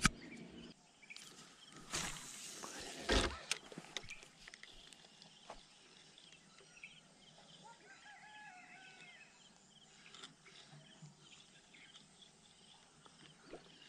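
Spinning rod cast with a frog lure: a short whoosh of line paying out about two seconds in, then a sharp knock about a second later. Faint scattered clicks from handling the reel follow as the lure is worked back.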